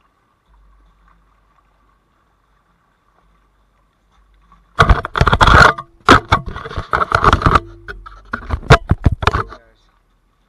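Hands handling an action camera right at its microphone: loud rubbing, scraping and knocks on the camera body, starting about halfway through and lasting about five seconds.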